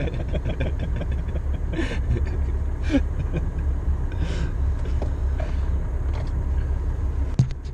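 Land Rover Defender 90 Td5's five-cylinder turbodiesel engine idling, a steady low rumble heard from inside the cab. A sharp click sounds near the end.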